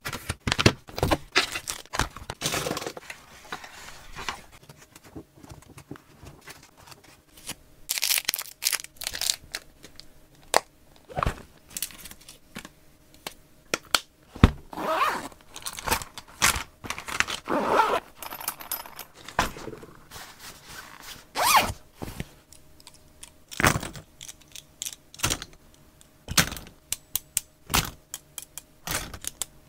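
Stationery being handled: irregular clicks, taps and knocks of plastic boxes, lids and pens being picked up and set down, with a few longer rustles of plastic packaging.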